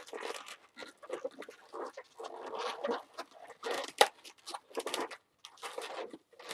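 Latex modelling balloons squeaking and rubbing against each other and the hands in short, irregular bursts as a balloon is twisted around, with one sharp snap about four seconds in.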